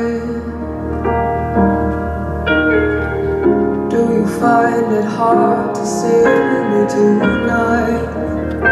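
Music: a slow song with piano over a low sustained bass.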